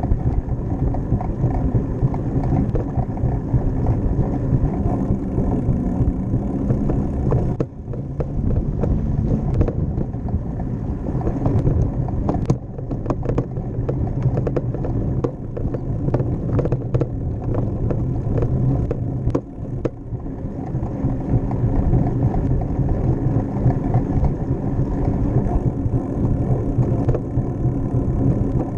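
Wind buffeting the microphone and steady tyre and road rumble from a bicycle ride on pavement, with a stretch of rattling clicks partway through as the bike rolls over brick pavers.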